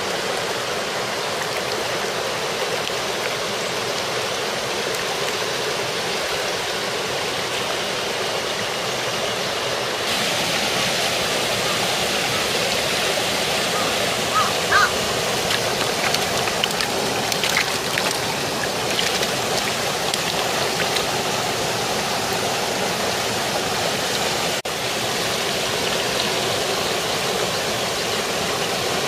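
A small mountain stream rushing steadily over a low cascade of logs and stones. The rush grows a little louder and brighter about ten seconds in, with a few short clicks in the middle.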